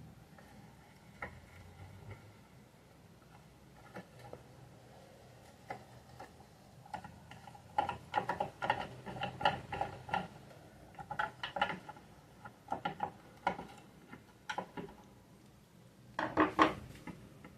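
Metal clinking and tapping of tools and screws against a sewing machine being taken apart, in clusters of quick clinks that grow busier about halfway through and are loudest near the end.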